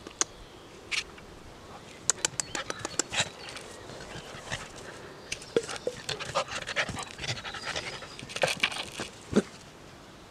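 Bernese mountain dog puppy's breathing and mouth noises: irregular sharp clicks and short huffing breaths, busiest in the second half.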